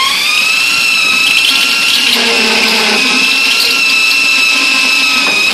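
Power drill running a spot weld cutter bit pressed into a spot weld on the pickup bed's sheet steel, drilling the weld out. It gives a steady high whine that rises briefly at the start, then holds level until it stops near the end.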